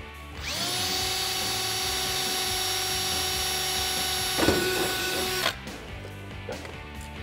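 Cordless drill spinning up and running at a steady whine for about five seconds while drilling out the center of a plastic push rivet in the wheel-well liner. It gives a brief rough grinding catch about four and a half seconds in, then stops suddenly. Background music underneath.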